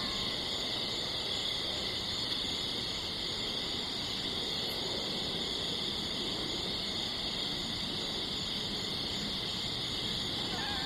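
Steady chorus of night insects such as crickets, a constant high buzz that neither rises nor falls, over a low even hiss.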